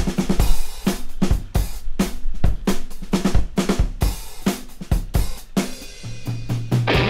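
Music: a rock drum beat, with kick, snare and cymbals, and a bass note coming in near the end.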